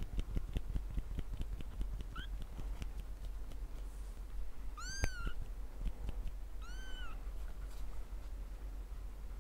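Three-week-old kittens mewing: three short, high mews about two, five and seven seconds in, the middle one the loudest, over small clicks and rustles.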